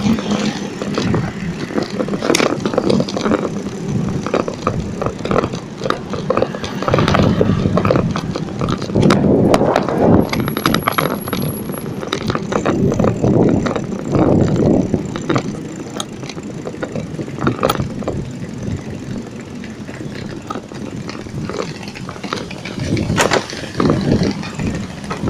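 Bicycle rolling over a brick-paved sidewalk, rattling and jolting on the paving, with sharper knocks now and then.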